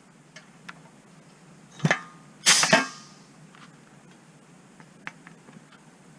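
Riveting machine setting a rivet in an aircraft stabilizer skin: a short double clack about two seconds in, then a longer, louder burst with a brief hiss, among light clicks of parts being handled.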